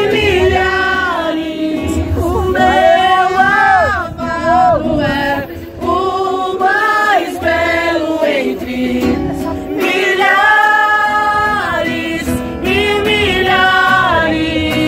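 A small group singing a Portuguese worship song in held, drawn-out phrases, women's and men's voices together, over an acoustic guitar.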